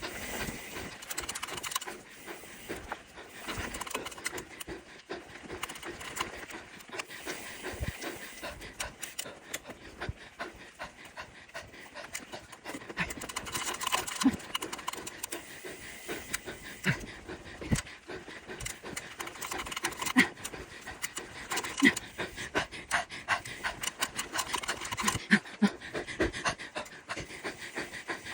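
A mountain biker panting heavily while pedalling uphill, one rough breath after another, with scattered sharp clicks and knocks.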